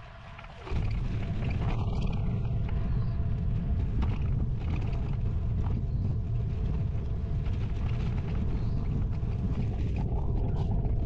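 Steady low rumble of wind buffeting the microphone while riding a bicycle, starting suddenly just under a second in.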